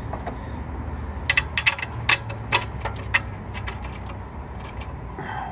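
Sharp metal clicks and clinks as a replacement alternator is worked into its mounting bracket on a truck engine, a quick run of them about a second in, over a steady low background hum.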